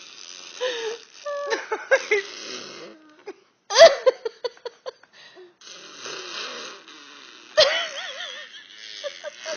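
A woman's hysterical laughter, wheezing and breathless, with long breathy gasps between short high-pitched squeals and a wavering shriek near the end.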